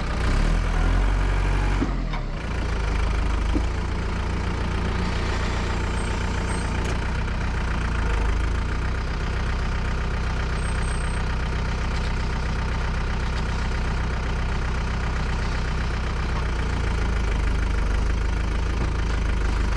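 Concrete mixer truck's diesel engine running steadily.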